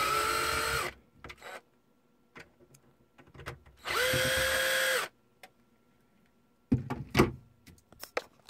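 Cordless drill-driver turning wood screws in plywood in two short runs: one ends about a second in, and the other lasts about a second near the middle. Each run is a steady whine after a quick spin-up. A few knocks and clatters come near the end.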